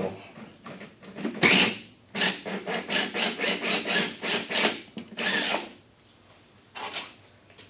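Power drill with a socket backing out the long through-bolts that clamp a Chevy Volt battery module stack together. It gives a steady high whine, then a run of short pulses at about four a second, and stops about five and a half seconds in.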